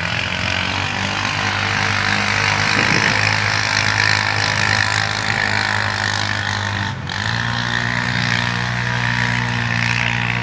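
Honda 450 ATV engine running hard at high revs through a mud bog pit on a timed run. About seven seconds in the engine note dips briefly, then carries on at a higher pitch.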